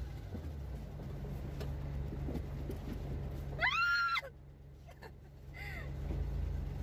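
A multicab's small engine idling steadily, heard from the driver's seat. About three and a half seconds in, a woman gives a short, high excited squeal, and a fainter one follows about two seconds later.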